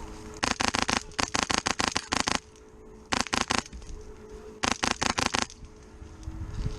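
Airsoft rifle firing three strings of rapid shots: a long string starting about half a second in, a short one about three seconds in, and another about five seconds in.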